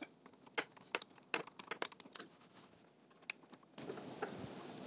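Faint, scattered clicks and taps of hands handling a stepper motor and its metal mounting bracket. A faint steady hiss comes in near the end.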